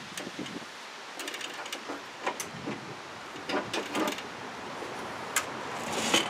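Scattered light metallic clicks and clinks of bolts, washers and lock nuts being handled and fitted on a rusty steel plow mount, several in quick succession, the loudest near the end, over a steady hiss of wind.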